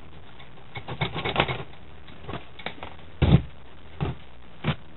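Handling noise from taking apart an old stereo: a quick run of small clicks and clatters of metal chassis parts about a second in, then a few separate knocks, the loudest a heavier thud a little past the middle.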